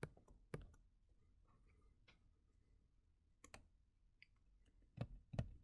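A few faint, sharp computer clicks, about six in three loose pairs, against near silence, as the screen is switched from one program to another.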